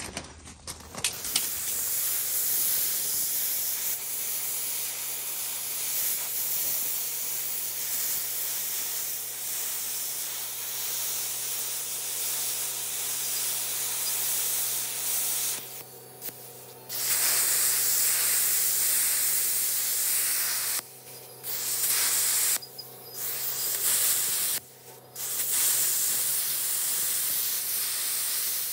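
Plasma cutter arc hissing steadily as it gouges the worn pintle hitch off the trailer tongue, with a steady low hum underneath. The hiss starts about a second in and cuts out briefly four times in the second half as the torch stops and restarts.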